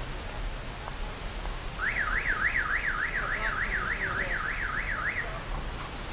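An electronic vehicle alarm warbles up and down, about three sweeps a second, for about three seconds starting about two seconds in, over steady wind noise.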